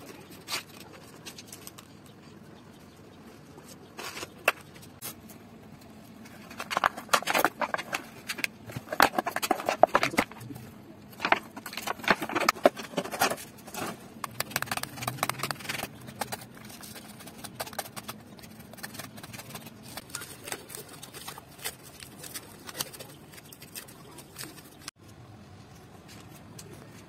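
Hands scraping and digging loose sand out of a ribbed plastic mold, with a busy run of scrapes and clicks in the middle stretch and quieter handling noise around it.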